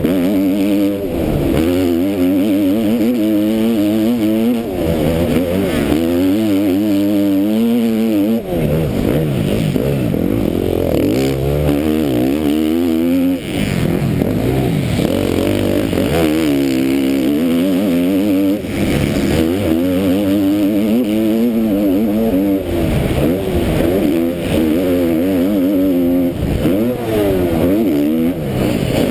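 KTM MX2 motocross bike engine heard from the rider's helmet while racing, revving up and falling back over and over as the rider opens and closes the throttle through the corners and straights, with a couple of brief drops in level about 8 and 13 seconds in.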